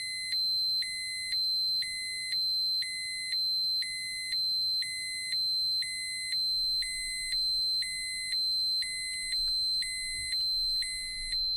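Electronic radiation dosimeter alarm sounding: a continuous high tone with a lower electronic beep pulsing on and off about once a second. This is the warning a dosimeter gives when its set dose or dose-rate limit is exceeded.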